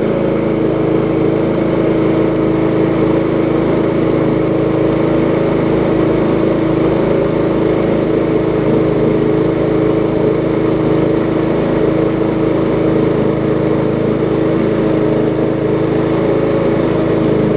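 Briggs & Stratton Classic single-cylinder engine on a push mower, running steadily at one constant speed, an even unchanging drone. It runs smoothly, the sign of a mower now running well.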